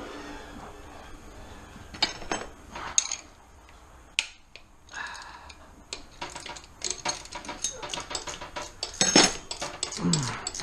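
Metal clinks of a wrench on a bolt, then a ratchet wrench clicking in quick runs from about six seconds in as a 14 mm alternator-bracket bolt is backed out.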